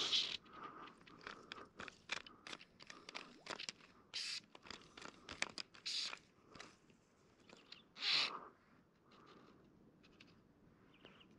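Fly reel clicking rapidly and unevenly, with four short buzzing runs of its click drag as a hooked fish pulls line.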